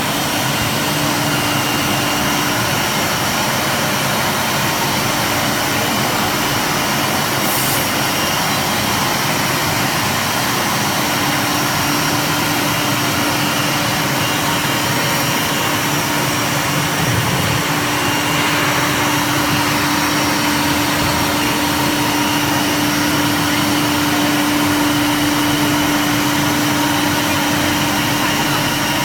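CNC wood router running, its spindle giving a steady whine over even, continuous machining noise.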